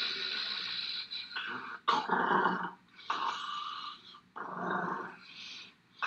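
Kitten growling and hissing in a series of short bursts as a hand reaches in to pet it, a defensive warning.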